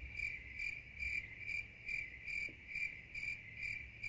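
Cricket-chirping sound effect: a steady high trill pulsing about twice a second. It is edited in as the 'crickets' gag for an awkward silence.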